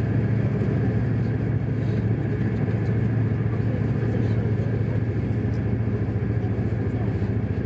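Steady low rumble of a passenger train running at about 150 km/h, heard from inside the carriage.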